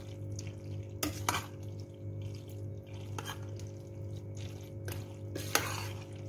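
A spoon stirring elbow macaroni through thick bechamel sauce in a stainless steel pot, with a few short scrapes and clinks against the pot, over a steady low hum.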